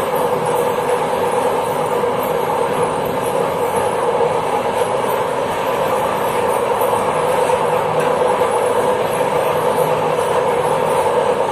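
Passenger train running steadily along the track, heard from the rear of the train: continuous rolling noise of wheels on rail with a steady hum.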